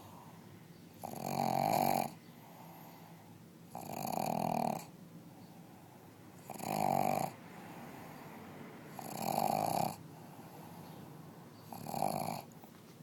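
A sleeping pug snoring: five loud snores at an even pace, about one every two and a half seconds, each lasting about a second, with quieter breaths in between.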